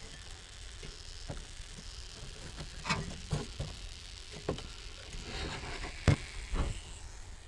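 Handling noise: scattered light knocks and clicks, about a dozen, over a faint steady hiss, with the sharpest knock about six seconds in.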